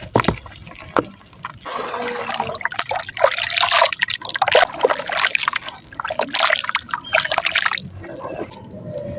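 Chunks of soft dried mud crumbling in water, with wet crackling, dripping and trickling. A couple of sharp taps come in the first second, then a dense wet crackle that stops shortly before the end.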